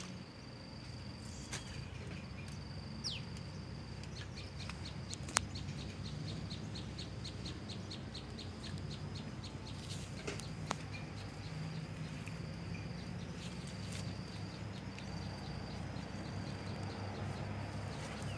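A bird's high, thin call: a steady note that breaks into a run of rapid chirps, about five a second, over a steady low hum.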